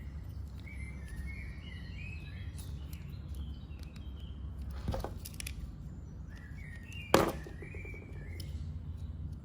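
Birds chirping in the background over a steady low hum, with a small click about five seconds in and a sharper, louder click a couple of seconds later.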